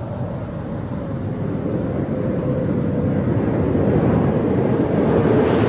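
Space Shuttle orbiter Endeavour gliding in unpowered on final approach, gear down: a steady rushing of air that grows gradually louder as it nears, with a faint steady hum underneath.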